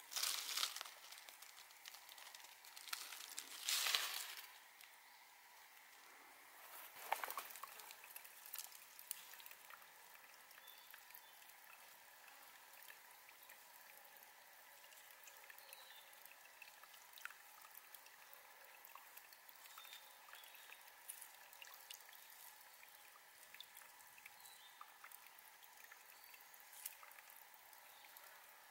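Rustling and scraping of plant stems and soil pulled at by hand, in three louder bursts over the first seven seconds or so. After that comes a faint steady trickle of shallow seeping water, with occasional small clicks.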